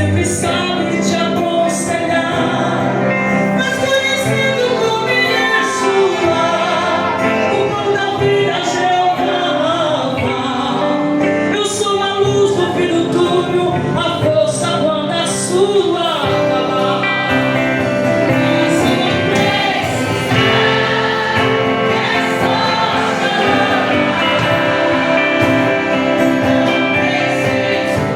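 A gospel song with singing over instrumental backing, the sung lines wavering and continuous.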